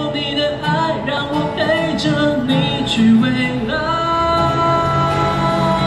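A street busker singing to his own acoustic guitar. About halfway through he holds one long note until near the end.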